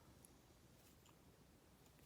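Near silence: room tone with a couple of faint light ticks.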